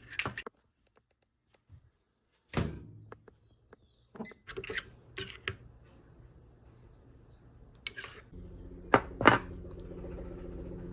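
A metal spoon clinks and taps a few times against a small ceramic bowl of paste, with a short stretch of near silence between. About two-thirds in, a steady low hum begins underneath a couple more taps.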